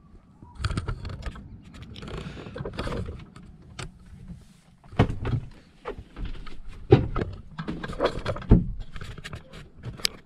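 Handling noise of a camera being carried down into a sailboat's cabin: irregular rustling and knocks, with several sharp thumps in the second half.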